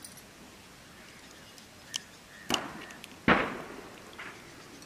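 Eggs being cracked open with a knife over a steel mixing bowl: a few sharp taps and cracks, the loudest a little over three seconds in.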